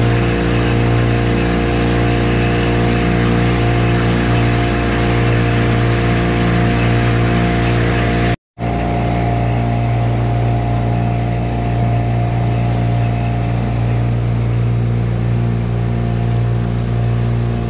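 Small tiller outboard motor running steadily at speed on a moving boat, one even engine note over the rush of its wake. The sound drops out completely for a split second a little past eight seconds in, then resumes unchanged.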